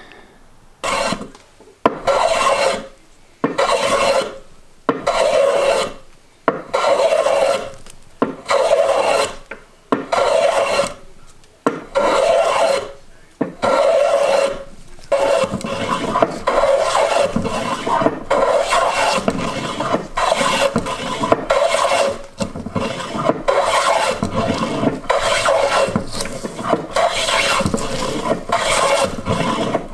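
Hand plane taking heavy scrubbing strokes across a rough-sawn board face to flatten it. The strokes come about one a second with short gaps at first, then from about halfway on they come quicker and almost run together.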